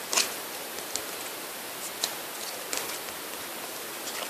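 Football trading cards being handled and shuffled by hand: a few short flicks and rustles of card stock over a steady hiss.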